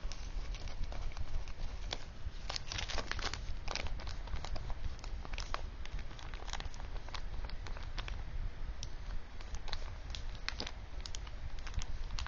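Crinkling and scattered light clicks and taps of kitchen handling as flour and margarine are mixed into a greasing paste for a cake pan, busiest about two to four seconds in.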